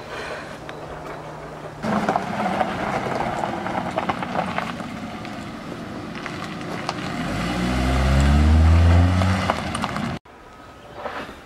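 Nissan Rogue SUV driving over a gravel driveway, tyres crunching on the stones. Its engine grows louder as it passes close, then the sound cuts off suddenly about ten seconds in.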